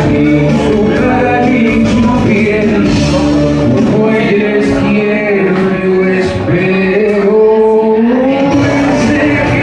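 A man singing into a handheld microphone over backing music, the voice holding and sliding between sustained notes.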